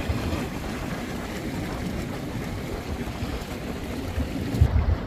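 Geothermal mud pots boiling, the hot mud bubbling from volcanic heat below, with wind on the microphone. A few stronger low thumps come near the end.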